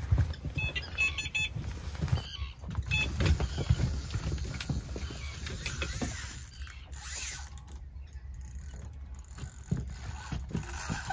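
Irregular knocks, thuds and rustles of a person getting up and moving about in a boat, with a quick run of short high ticks about a second in.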